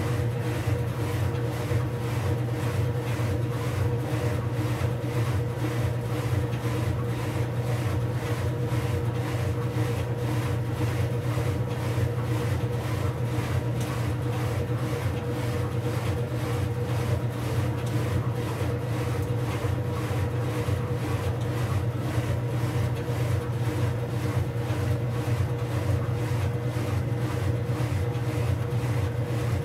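Whirlpool Supreme belt-drive top-loading washer with its basket spinning: a steady motor-and-transmission hum with a constant mid-pitched whine, unchanging throughout.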